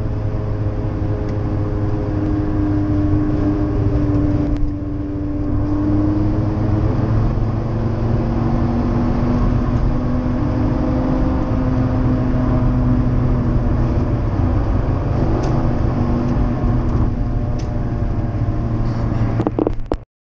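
BMW E39 540i's 4.4-litre V8 with an aftermarket Reuter Motorsport exhaust, heard from inside the cabin while driving under load. The engine note climbs and eases slowly in pitch, with a short break about four and a half seconds in. It cuts off suddenly at the end.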